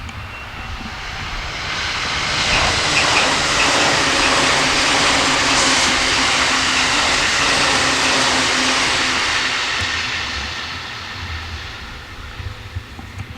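Electric train passing close by. Its rushing rumble of wheels on rail builds over the first few seconds, stays loud for about six seconds, then fades away.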